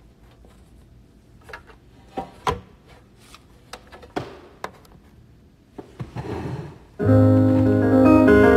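A few scattered knocks and bumps, then about seven seconds in an electronic keyboard starts playing loud, held chords.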